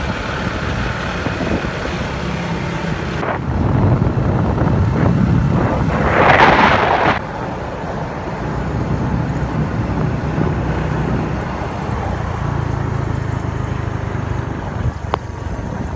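Motorcycle engine running steadily while riding, with wind buffeting the microphone. A louder rush of wind noise comes about six seconds in.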